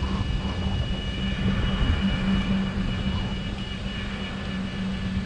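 Golf cart driving along a paved street: a steady drive hum with a faint high whine, over uneven wind and road rumble on the microphone.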